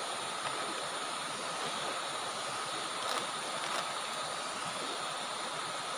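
Steady rush of a fast-flowing river, with a faint thin high tone running through it.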